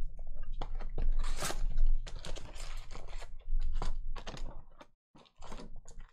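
Foil-wrapped trading card packs and a cardboard hobby box being handled: irregular crinkling and rustling as the packs are pulled out and stacked. The noise briefly drops away about five seconds in.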